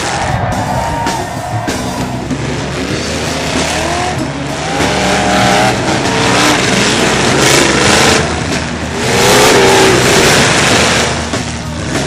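Several demolition derby cars running hard, their engines revving up and down as they maneuver and ram each other in the dirt; the revving is loudest near the end.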